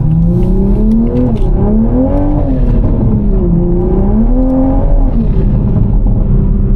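Toyota A90 Supra's engine accelerating: its pitch climbs in the first second, swells and drops twice, then holds steady near the end.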